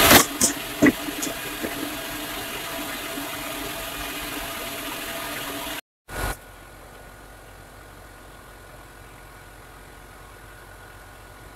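A few sharp hammer knocks on wood as nails are worked out of a board, over the steady hum of a ship's machinery. About six seconds in there is one more knock, and after it the machinery hum goes on more quietly.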